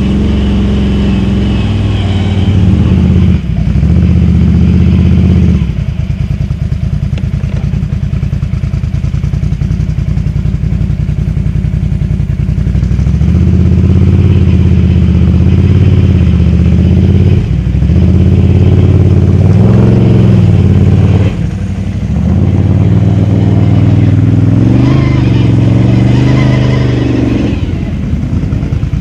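Can-Am Outlander XMR 1000 ATV's Rotax V-twin running hard through dual slip-on exhausts, revs rising and falling as the throttle is worked. The throttle is chopped briefly a few times, about 3 and 6 seconds in and twice more around 17 and 21 seconds, with revs climbing again near the end.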